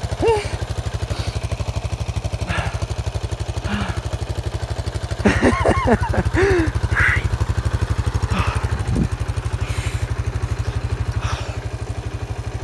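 ATV engine idling steadily with an even low pulse, with a few brief voices calling out around the middle.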